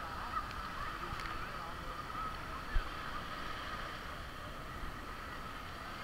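Beach ambience: a steady distant engine drone over a soft hiss, with one dull thump a little before the middle.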